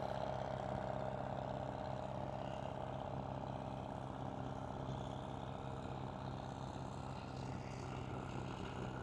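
Doe Triple D twin-engine tractor running steadily under load while pulling a plough.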